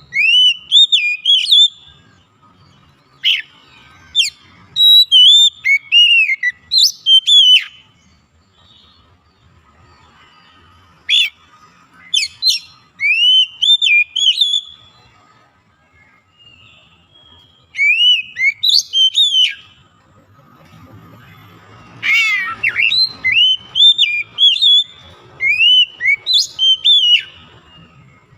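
Oriental magpie-robin (kacer) singing loud whistled phrases that glide up and down. The song comes in several bouts, with pauses of a few seconds between them.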